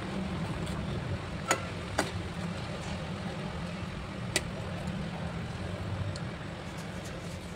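A metal ladle clinking against a metal cooking pot three times, short sharp clicks about a second and a half, two and four and a half seconds in, over a steady low rumble.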